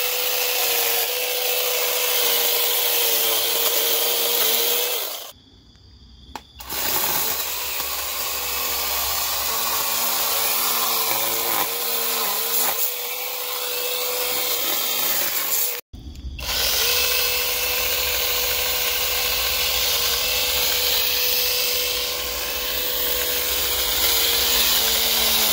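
Small cordless one-handed mini chainsaw running with a steady high motor whine, its chain cutting into dead brush. The motor drops out twice, for about a second some five seconds in and very briefly later.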